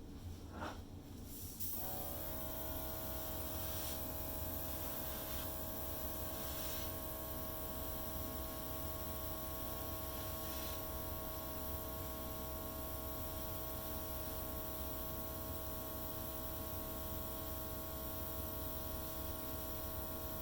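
Airbrush compressor's small electric motor running with a steady hum and hiss, switching on about two seconds in and cutting off near the end.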